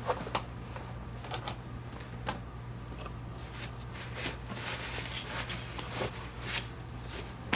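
Scattered light knocks, rustles and creaks as bedding, a hospital bed and a bedpan are handled while a resident is turned onto her side, over a steady low hum.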